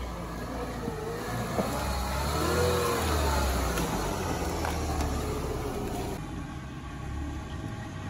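Lada Niva engine revving under load after the clutch is let out, its pitch rising and falling for several seconds and easing off about six seconds in.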